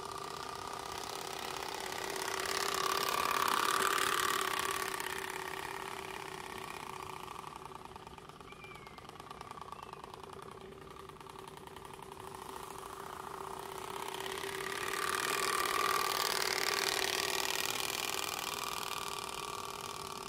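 Turbospoke bicycle exhaust, its plastic cards flicked by the wheel spokes, giving a steady rattling buzz as the bicycle is ridden. It swells twice as the bike comes close, about three to four seconds in and again around fifteen to seventeen seconds, and is fainter in between.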